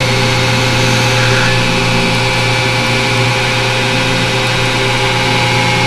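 Lathe running at steady speed: a constant motor hum with a thin high whine over it.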